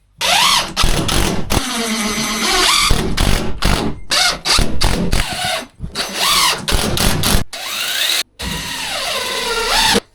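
Power drill driving long screws through wall lining into the timber framing, in a string of bursts with short breaks, the motor's pitch sliding up and down as each screw bites.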